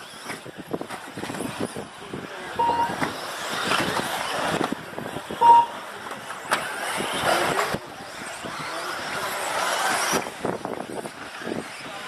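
Radio-controlled off-road racing buggies running laps, their motors swelling and fading as the cars pass, accelerate and brake. Two short beeps cut through, about a third and halfway in.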